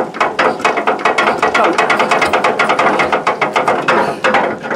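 Vintage single-cylinder air-cooled Petter diesel being hand-cranked for a cold start, turning over without firing. It makes a fast, even mechanical clicking that eases off near the end.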